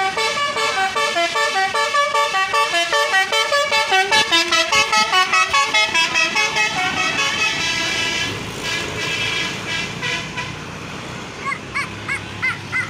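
Bus telolet air horn playing a fast tune of short pulsed notes, about four or five a second, for roughly seven seconds. Then the horn stops, leaving the steady noise of the bus.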